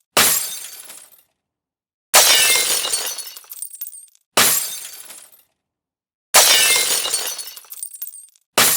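Window glass shattering, five times about two seconds apart: each a sudden crash followed by about a second of tinkling fragments dying away.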